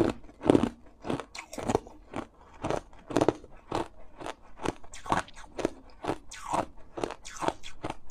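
Hard clear ice being chewed and crunched between the teeth: a steady run of sharp crunches, roughly two to three a second, the loudest in the first second.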